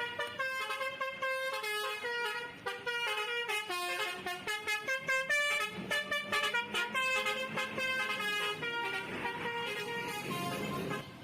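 Bus telolet horn, a Basuri multi-trumpet musical horn, playing a quick melody of stepped notes in short blasts.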